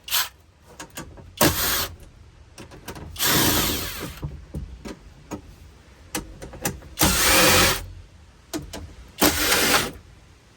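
Cordless drill/driver whirring in short bursts, about five of them, each under a second, with small clicks and knocks between them as screws come out of the dash panel.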